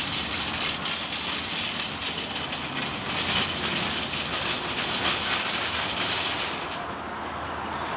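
Small wheels of a pushed carriage rolling over a concrete footbridge deck, a steady clattering rattle that eases off about seven seconds in.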